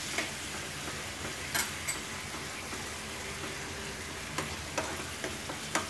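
Steel spoon stirring a thick yogurt gravy in a frying pan, with a few short clicks and scrapes of the spoon against the pan over a faint steady sizzle.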